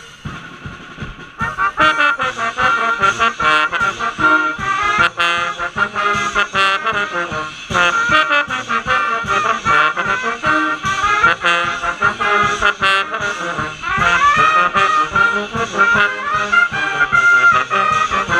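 College hockey pep band playing a tune on brass, trumpets and trombones, over drums. It comes in loud about a second and a half in.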